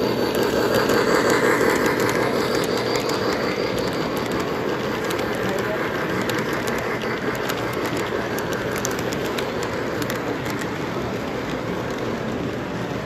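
O-gauge model freight train rolling past on three-rail track, its wheels clicking over the rail joints. The rumble is loudest about a second or two in as the cars pass close, then slowly eases off.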